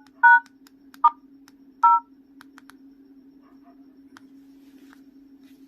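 Jio F220B keypad phone giving short two-tone dialing beeps as its keys are pressed, four beeps in the first two seconds: the repaired keypad is responding. A low steady hum runs underneath.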